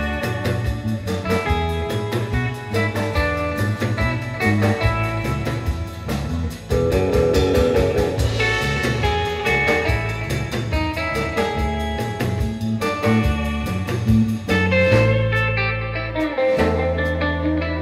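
Live band playing a rautalanka-style instrumental: electric lead guitar over drum kit, bass and acoustic rhythm guitar. The cymbals drop out briefly near the end, leaving guitar and bass.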